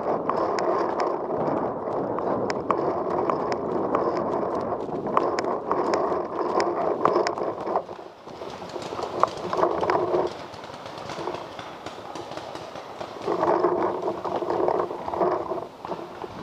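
Footsteps crunching and rustling through dry leaf litter and twigs at a walking pace, with sharp snaps mixed in. The steps ease off about halfway through, then come back in two short spells.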